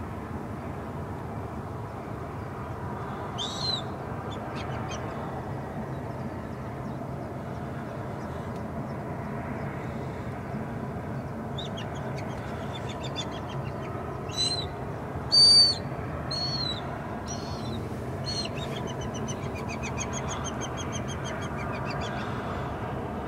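Birds calling over a steady low background hum: a few short high calls, then a cluster of louder calls about halfway through, and a fast run of repeated high notes near the end.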